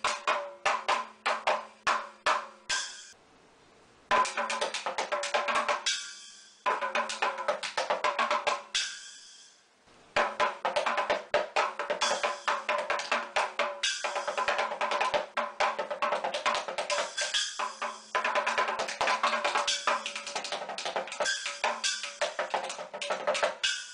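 Miniature desktop drum kit with small chrome drums and a tiny cymbal, played with drumsticks: fast rhythmic strokes that ring on after each hit, stopping twice for about a second before starting again.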